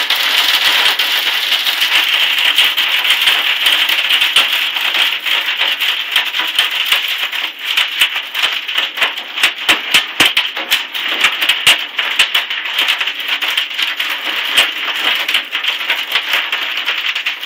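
Hailstones pelting hard surfaces in a hailstorm: a dense, crackling rattle of small hits over a steady hiss. The hits grow heavier and louder from about eight to twelve seconds in.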